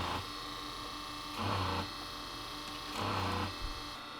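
Boat's freshwater pressure pump running with a steady hum, surging in three short pulses about a second and a half apart.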